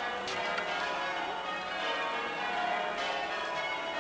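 Church bells ringing in a peal: many overlapping bell strikes following each other every fraction of a second, each one ringing on into the next.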